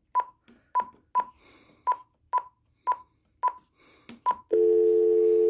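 Keypad beeps from a Uniden cordless phone base: a string of short, single-pitched beeps, about two a second, as a number is keyed in. About four and a half seconds in, the speakerphone is switched on and a loud, steady dial tone comes from the base's speaker.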